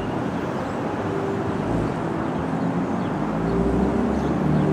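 Bombardier R62A subway train approaching slowly on elevated track: a steady rumble with a low motor hum, growing a little louder toward the end.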